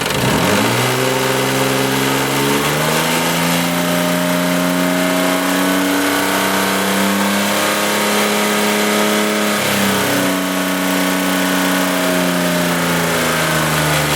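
1995 Isuzu Rodeo 3.2 V6 engine revved up in two steps and held at higher speed, then eased down to a lower speed and back toward idle near the end. At these revs the knocking it makes at idle fades, which the owner takes as pointing to the timing belt tensioner rather than a worn rod bearing.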